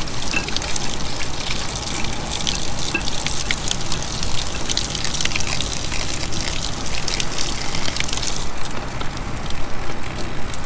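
Water gushing and splashing from an above-ground pool's return line and valve fittings while a hose is moved between valves, over a steady low pump hum. The splashing thins out sharply about eight and a half seconds in.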